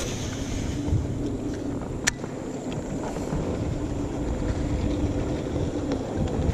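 A boat's motor running steadily as a low rumble with a faint hum, with wind noise on the microphone. A single sharp click about two seconds in.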